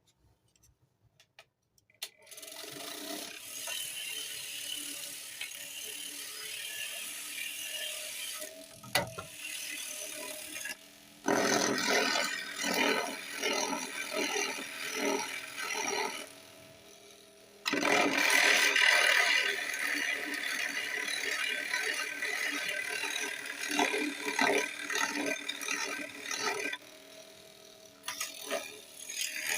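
Homemade electric orbital sander switched on about two seconds in and running with a steady motor hum and a rattle. Twice it turns louder and rougher for several seconds, with dense rattling, then drops back to the lighter running sound.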